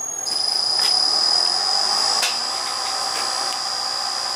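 Bridgeport milling machine running, its spindle turning a fly cutter, with a steady high-pitched whine that sets in just after the start, and a few faint clicks.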